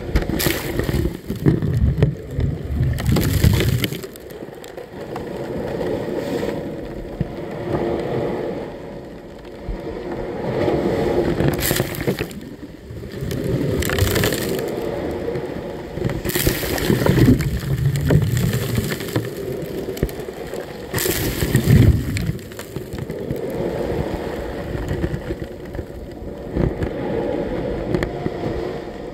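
Small Black Sea waves breaking at the shoreline and washing up the sand close to the microphone. The sound surges every few seconds, with loud splashes as each wave hits.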